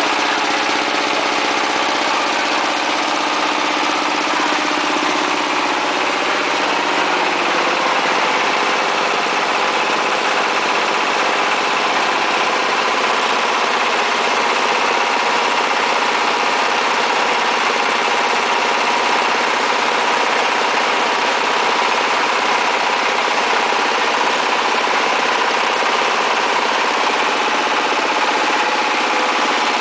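Brick-making machine's 24 hp diesel engine running steadily, with the hum and clatter of the machine it drives.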